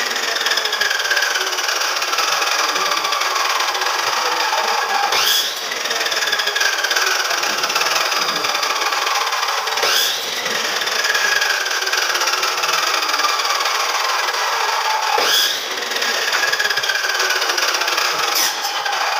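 Electric power saw cutting wood in repeated cuts. During each cut the motor's whine sinks slowly in pitch as the blade drags, then jumps quickly back up when it frees, about every four to five seconds.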